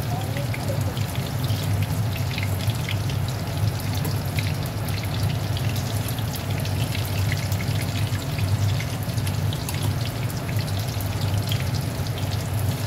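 Lentil meatballs frying in shallow oil in a wok, with a steady sizzle full of small crackling pops. A steady low hum runs underneath.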